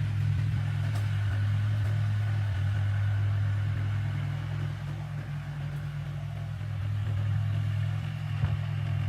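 A heavy engine running steadily at a low, even pitch, from the excavator or dump truck working the mud, with a single brief knock about eight seconds in.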